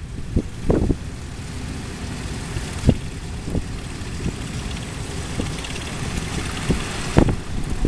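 Antique farm tractor engines running at low speed as the tractors drive past in a line, a steady low rumble with scattered short knocks. A rushing hiss builds from about two seconds in and stops abruptly near the end.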